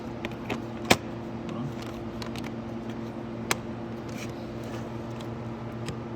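A few sharp clicks and knocks as body-kit parts for a 125cc dirt bike are fitted and handled, the loudest about a second in and another past the middle, over a steady low hum.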